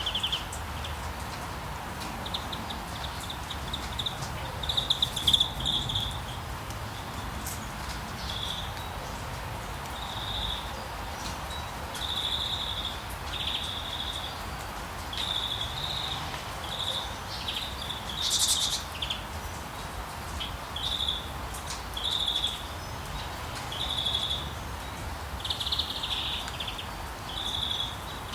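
Steady rain hiss over a low rumble, with a small songbird repeating short high chirps every second or two. A brief run of louder sharp clicks comes about five seconds in.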